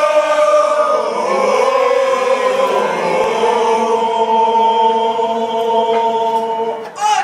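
A crowd singing together in unison, the melody moving at first and then settling into one long held note that breaks off just before the end.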